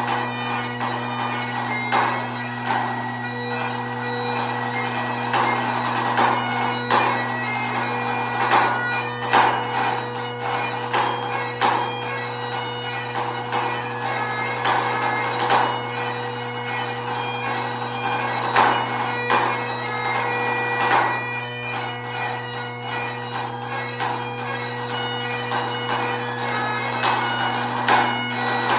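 Great Highland bagpipe playing a tune over its steady drones, with a pipe-band snare drum playing along. The drum's accented strokes stand out sharply above the pipes.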